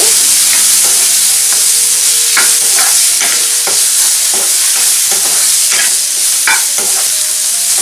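Onion, tomato and spice masala sizzling in hot oil in a non-stick wok while a silicone spatula stirs it, with a scattering of short scraping strokes against the pan.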